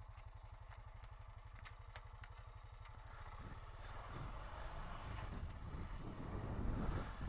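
Honda Foreman 520 ATV's single-cylinder engine idling with an even, rapid low pulse, a few light clicks near the start. It then picks up and gets louder over the second half as the ATV sets off.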